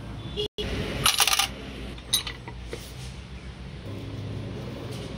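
Small metal parts and a hand tool clinking against each other while a common rail diesel injector is dismantled: a quick cluster of sharp metallic clinks about a second in, then a single clink, over a steady low hum.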